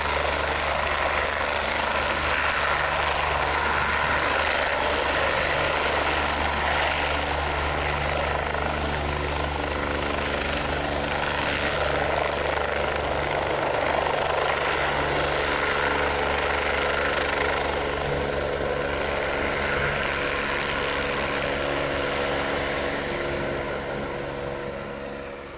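BK117 C-2 twin-turboshaft helicopter lifting off from a hover and climbing away, engines and rotors running steadily at take-off power. The sound fades over the last few seconds as it climbs out.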